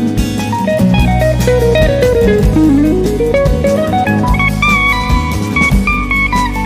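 Background music: a guitar melody over a steady bass and drums.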